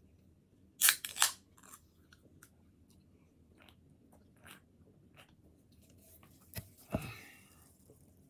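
A person drinking from an aluminium soda can between bites: two loud sharp bursts about a second in, faint clicks and mouth sounds, then a knock near the end as the can is set down.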